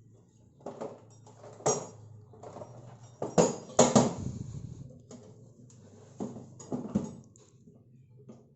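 Sheet-metal tool box full of tools being closed: a string of metal clanks and rattles as its compartments fold shut and the tools shift, the loudest about three and a half to four seconds in.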